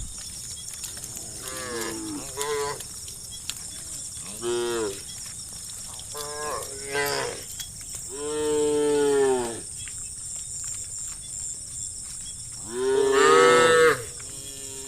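Herd of cattle mooing: a string of separate moos at differing pitches, with a long moo a little past the middle and the loudest one near the end.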